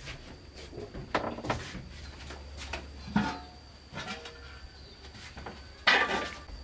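Metal cooking pot being handled on a brick stove: scattered knocks and short ringing clanks, the loudest about six seconds in as the pot is lifted.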